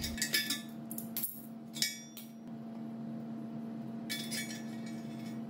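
Steel rods and fittings of a homemade torch circle cutter clinking and rattling against a steel wheel rim as they are handled and set in place, in a string of sharp clinks over the first couple of seconds and another few about four seconds in. A faint steady hum runs underneath.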